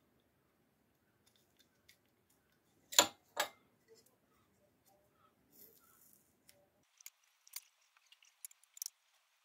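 Masking tape being peeled off a bent metal part by hand, with faint crackles and small ticks. Two sharp clicks a fraction of a second apart about three seconds in are the loudest sounds.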